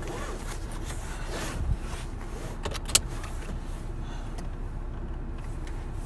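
Steady low rumble inside a car's cabin, with rustling as the phone is handled against clothing and one sharp click about three seconds in.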